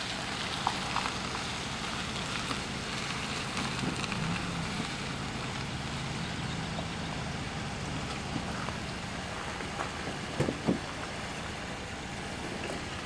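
A pickup truck's engine idling under a steady rushing hiss, with a few light knocks about ten seconds in.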